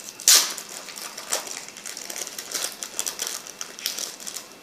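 Crinkling and crackling of a small plastic packet being handled: a sharp crackle about a quarter second in, then a run of fine crackles.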